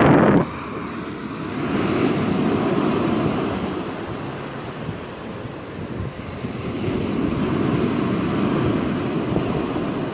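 Ocean surf breaking and washing up the beach, swelling twice as waves run in, with wind buffeting the microphone and a loud rush right at the start.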